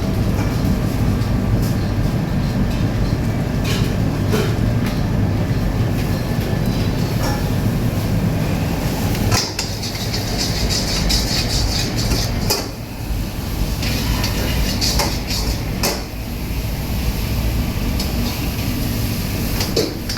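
High-flame gas wok burner running with a steady low roar, with scattered sharp clanks of metal on the wok.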